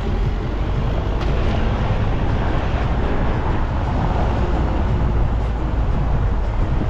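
A motor vehicle running along a road: steady engine and road noise, heaviest in the bass.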